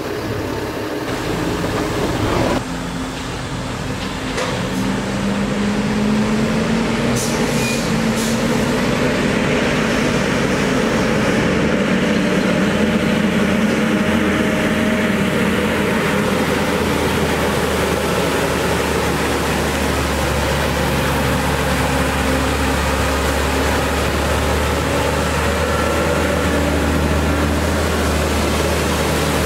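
Freightliner M2 water truck's Cummins ISC diesel running steadily as the truck rolls slowly in low gear, with the hiss of water jetting from its PTO-pump spray heads.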